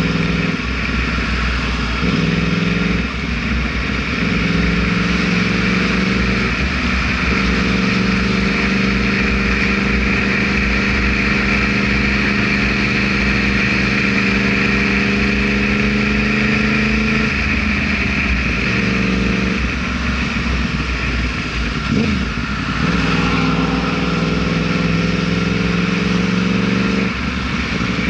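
Yamaha R1's inline-four engine running under way. Its note holds fairly level for stretches and changes in steps several times, with a steady rushing noise underneath.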